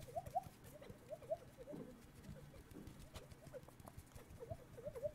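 Mouth sounds made into cupped hands close to a microphone, mimicking nature sounds: quick short squeaky chirps, several a second in little runs, over soft clicks and taps.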